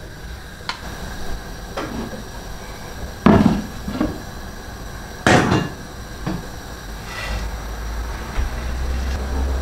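Clatter of a metal frying pan full of fried peanuts being lifted off a gas hob and handled over a blender jug: a few sharp knocks, the loudest about three and five seconds in. A low hum comes in near the end.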